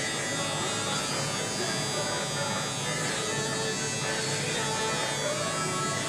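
Electric hair clippers buzzing steadily while cutting a man's hair.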